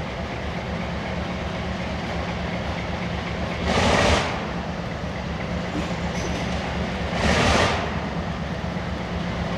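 Alco diesel locomotive's engine running with a steady low rumble as it approaches slowly, exhaust smoking. Two short, loud hisses cut in, about four seconds in and again about three seconds later.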